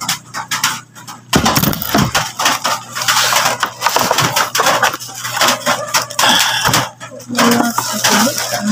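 Clear plastic packaging crinkling and a cardboard box being handled and shifted, a dense, irregular run of rustles and small knocks.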